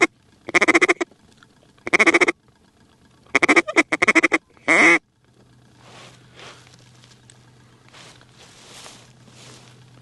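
Dux Pro Series single-reed duck call blown in a series of loud quacks: three drawn-out ones, then a quick run of short notes and one more, stopping about five seconds in. After that there are only faint field sounds over a low steady hum.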